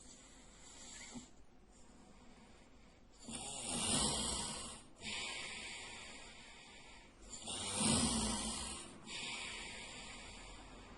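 A sleeping man snoring loudly: two snores about four seconds apart, each followed by a long hissing breath out, with quieter breathing before the first.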